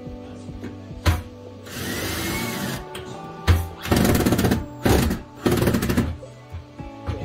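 Background music, over a run of knocks and short bursts of tool noise from work inside a wooden kitchen base cabinet that start about halfway through, after a brief hiss about two seconds in.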